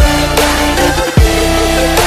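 Electronic music with sustained synth notes and deep bass that drops sharply in pitch at the start and again about a second in.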